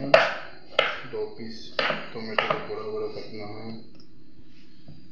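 Kitchen knife cutting a tomato on a wooden chopping board: four sharp knocks in the first two and a half seconds as the blade hits the board, with a voice talking underneath.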